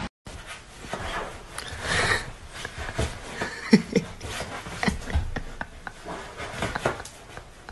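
A fluffy puppy scrabbling and rubbing its paws against a fabric sofa as it struggles to climb up. Scattered scratching and rustling throughout, with two short pitched sounds close together near the middle.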